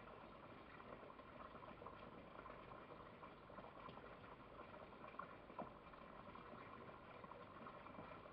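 Near silence: faint steady background hiss, with a couple of soft ticks about two-thirds of the way through.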